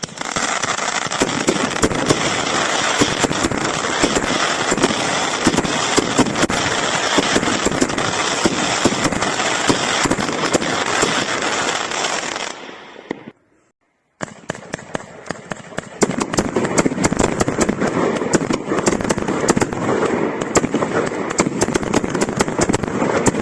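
A 30-shot firework cake firing: a dense, continuous crackle of rapid sharp pops. It breaks off for about a second past the middle, then resumes and grows louder.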